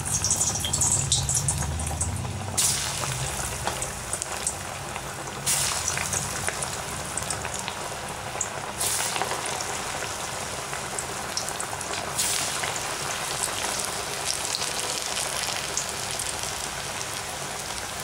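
Masala vada patties deep-frying in hot oil in a steel kadai: a steady bubbling sizzle. It flares up suddenly about four times, in the first two thirds, as more vadas go into the oil.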